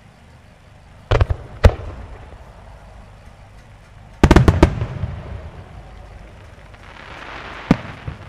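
Aerial firework shells bursting: a few sharp bangs about a second in, then a quick volley of bangs about four seconds in that rumbles away. A crackling hiss and one more bang come near the end.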